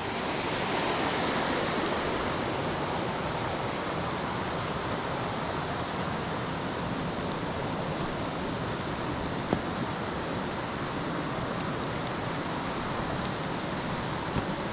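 Steady rushing of fast-flowing water in a beck, a continuous even hiss, with a single brief knock about nine and a half seconds in.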